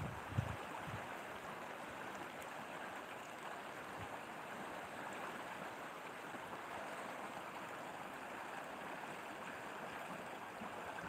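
Steady rushing of a shallow stony river and a small irrigation channel flowing, with a few low bumps in the first second.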